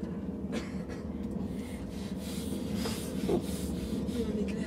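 Steady low hum of a passenger train running, heard from inside the carriage, with a few faint short clicks.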